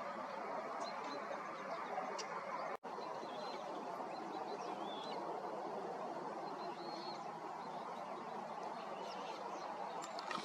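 Faint, short bird chirps and calls scattered over a steady background hiss. The sound drops out briefly about three seconds in.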